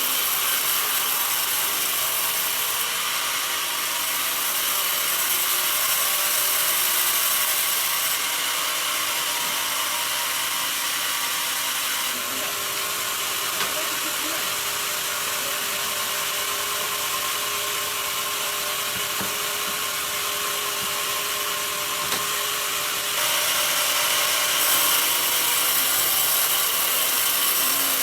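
Sawmill bandsaw cutting through bent mahogany wood: a steady high hissing rasp of the blade in the wood. It grows louder about three seconds in and again near the end.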